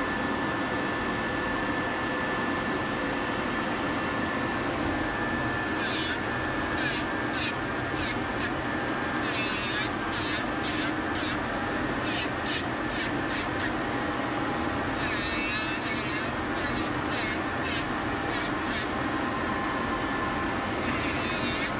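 Cordless Dremel rotary nail grinder running with a steady whine, with many short, high-pitched grinding passes on a schnauzer's nails from about six seconds in.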